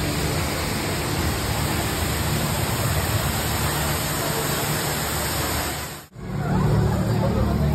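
Tall indoor waterfall: a steady rush of falling water. About six seconds in it cuts off abruptly and gives way to a lower, steadier hum.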